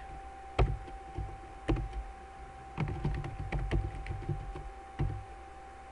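Typing on a computer keyboard: irregular single keystrokes and short runs of key clicks.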